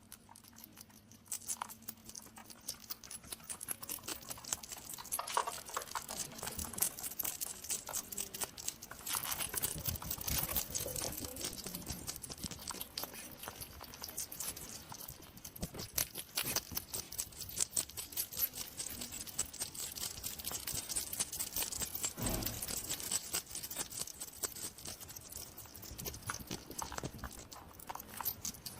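Hedgehog snuffling and rustling, with a dense run of quick irregular clicks and crunches.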